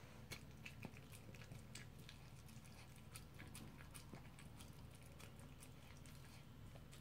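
Dog eating sticky rice off a paper plate: faint, irregular smacks and clicks of its mouth as it licks and chews, several a second.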